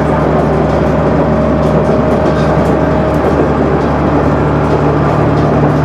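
KiHa 100 series diesel railcar under way, heard from inside the cabin: a steady engine drone with running noise from the wheels and rails.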